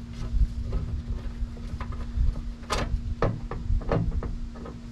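Scattered light clicks and taps of a screwdriver working Phillips screws out of a plastic rear interior trim panel, over a steady low hum.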